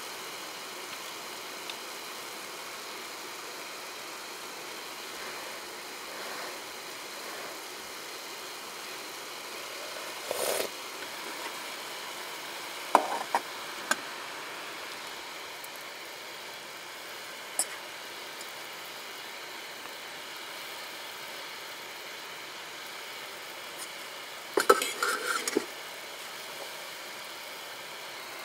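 Metal cookware and utensils clinking and knocking over a steady hiss: a few scattered clinks, a short cluster of three about thirteen seconds in, and a quick run of clatter near the end.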